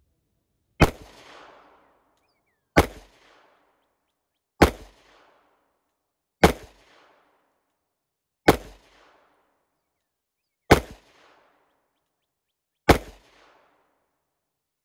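Pistol fired seven times in slow, deliberate fire, about two seconds apart. Each shot has a short echo trailing off behind it.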